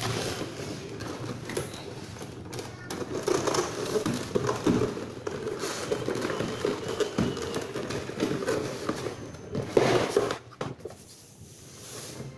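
Cardboard packaging being handled: an inner box scraping and rustling as it is worked up out of a snug outer cardboard box, with the loudest scrape about ten seconds in.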